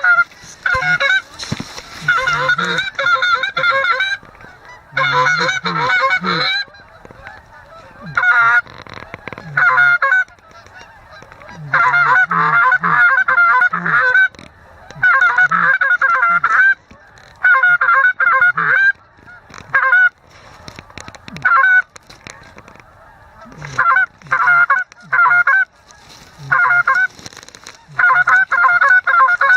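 Goose call blown by a hunting guide, imitating Canada geese: loud runs of quick honks and clucks, each run lasting one to three seconds, with short pauses between them.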